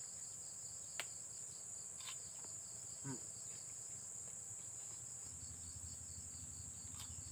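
Insects, cricket-like, calling steadily: a continuous high drone with a fast pulsing chirp just below it. A single sharp click about a second in.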